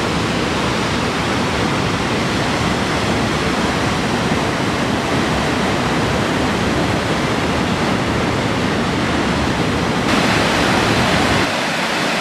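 Waterfalls rushing and splashing into rock pools: a steady, loud, even rush of falling water. The sound changes about ten seconds in, and near the end it turns lighter, with less deep rumble, as a smaller stepped cascade is heard.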